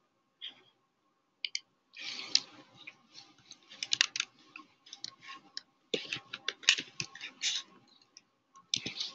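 Typing on a computer keyboard: a few single key clicks, then a quick, uneven run of clicks from about two seconds in.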